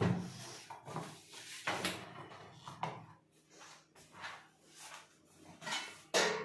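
LG microwave oven door being worked open and shut, giving a string of clunks and latch clicks about a second apart, the first the loudest.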